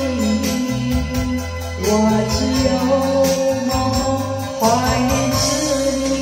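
Karaoke track of a Hokkien ballad playing from a television, the melody sung in long held notes over a steady backing.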